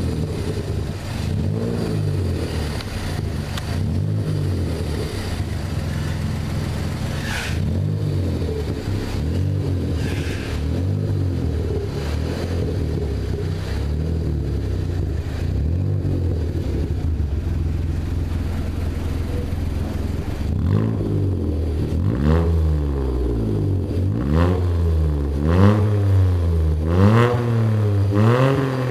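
Seat Ibiza 6L engine heard through a handmade sport exhaust: running with gentle rises and falls in revs, then blipped sharply and louder about every second and a half over the last eight seconds.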